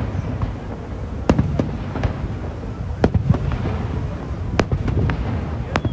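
Aerial fireworks going off in a string of about eight sharp bangs at uneven intervals, over a steady low rumble.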